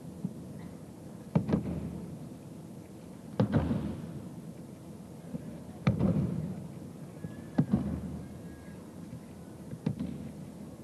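Aikido partners being thrown and taking breakfalls on tatami mats: five heavy slapping thuds about two seconds apart, each trailing off briefly.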